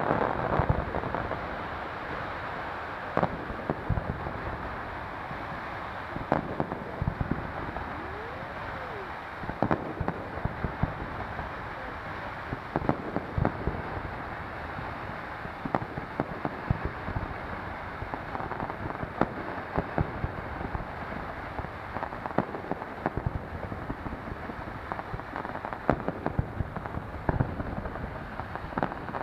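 Fireworks going off: many sharp bangs and pops at irregular intervals over a steady background rumble, with one brief whistle that rises and falls in pitch about a third of the way in.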